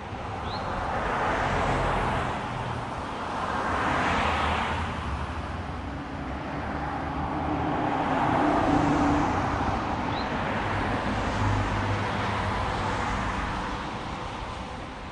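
Road traffic: a few cars passing by one after another, each a swell of tyre and engine noise that rises and fades away.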